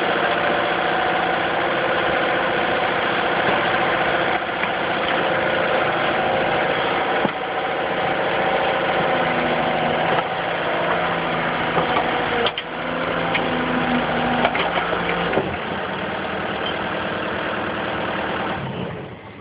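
Excavator's diesel engine running steadily, with a few sharp knocks over it. The engine sound dies away near the end.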